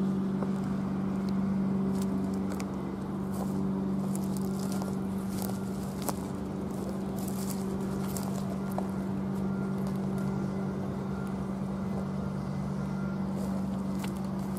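Footsteps crunching on gravel track ballast, over a steady low hum.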